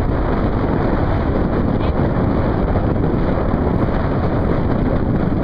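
Wind buffeting the microphone: a loud, steady rumble with no pauses.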